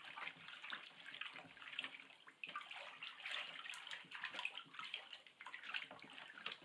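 Water sloshing and splashing in a plastic tub as a wooden stick stirs a salt-and-alum tanning solution to dissolve it.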